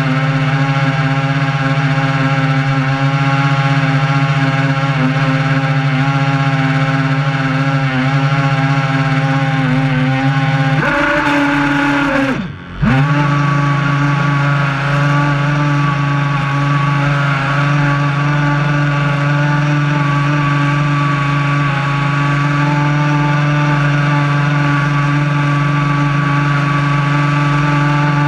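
The RC boat's twin brushed electric motors running at speed: a steady whine with water rushing past the hull. About halfway through, the pitch rises briefly, then drops sharply and the sound dips for a moment before the motors pick straight back up to the same steady whine.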